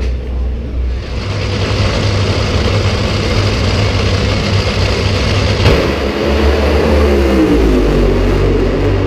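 A pair of dragsters making a run down the drag strip: loud engine noise that builds from about a second in, with a sharp crack near the middle, then the engine pitch falls away as the cars head down the track.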